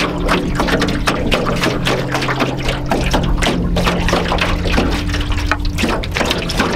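Small waves lapping and slapping irregularly against the hull of an aluminum canoe, over a soft, steady ambient music drone.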